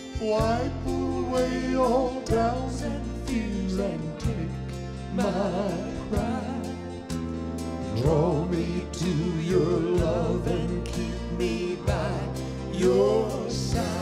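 Live gospel song: a man sings with vibrato over piano and band accompaniment.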